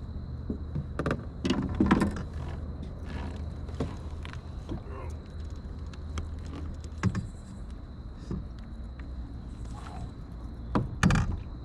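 Wind rumbling on the microphone, with scattered knocks and clicks of gear and a caught fish being handled aboard a fishing kayak, loudest about two seconds in and again near the end.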